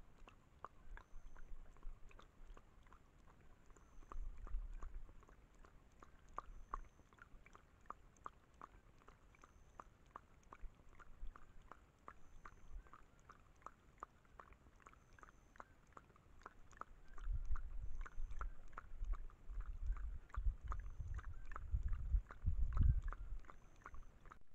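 A puma lapping water from a small pond in quick, regular laps, about four a second. Low rumbling bumps come and go under the lapping and are loudest in the second half.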